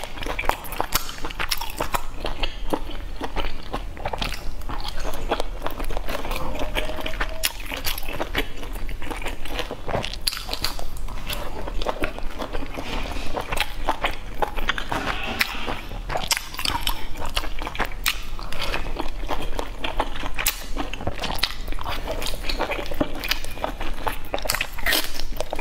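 Close-miked eating sounds: wet chewing and biting of boiled dumplings, with sipping from a bowl of dipping sauce, a dense run of small mouth clicks throughout.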